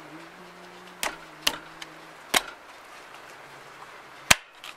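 Four sharp metallic clicks and taps from a hand tool worked against the fittings at a Ford Coyote engine's coolant water neck, where a bleeder screw is being fitted. The last click, near the end, is the loudest.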